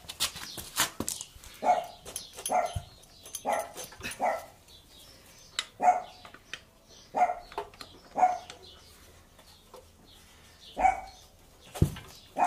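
A dog barking repeatedly, about ten single barks at uneven gaps of roughly a second. There are a few light clicks in the first second and a low thump near the end.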